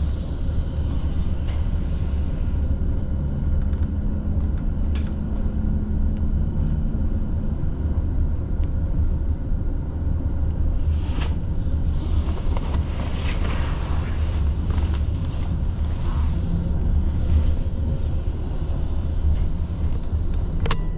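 Tram running, heard from inside the car: a steady low rumble from the wheels and running gear. A humming tone comes in about two seconds in and stops about seven seconds in, and a few sharp clicks sound along the way.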